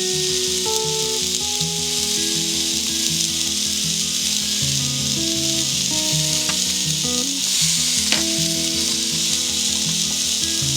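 Food frying in a hot pan, a steady sizzling hiss, under background music with a plucked melody; a single light click about eight seconds in.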